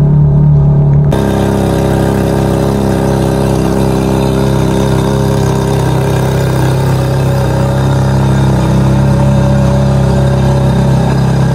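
Ferrari 430 Scuderia's V8 engine idling steadily. About a second in, the sound abruptly turns brighter and fuller.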